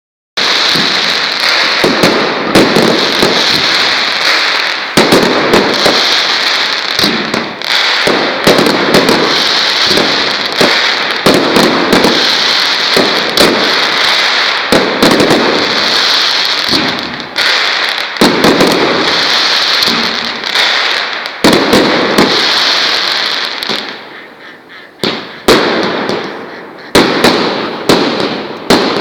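Partizan fireworks going off: a fast series of sharp bangs, roughly one a second, over a steady hiss. In the last few seconds the hiss fades and the bangs come further apart.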